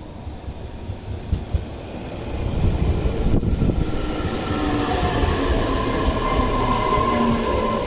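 Tobu 60000 series electric commuter train approaching and running past close by. It grows louder over the first couple of seconds, then holds a steady rumble of wheels on the rails with a thin whine on top.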